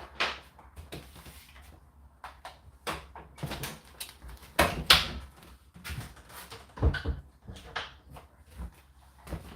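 Indesit IDC8T3 condenser tumble dryer running: a steady low hum with irregular knocks and thuds, about one or two a second, as the load tumbles in the drum.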